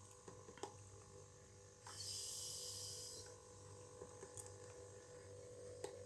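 Refrigerant hissing through the manifold's low-side valve as it is cracked open, starting about two seconds in and lasting about a second and a half: a pulse of freon being charged into the refrigerator. Under it runs the steady low hum of the refrigerator compressor, with a few light clicks from the valve being handled.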